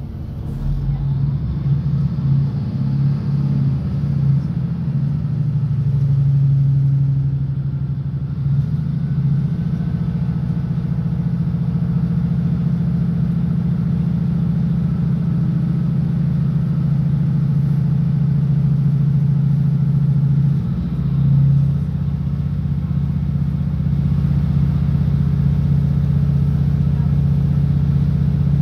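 Class 156 Sprinter diesel multiple unit heard from inside the passenger saloon: a steady, loud low drone from its underfloor Cummins diesel engine and running gear as the train moves. The engine note changes briefly a little past two-thirds of the way through, then settles back to a steady drone.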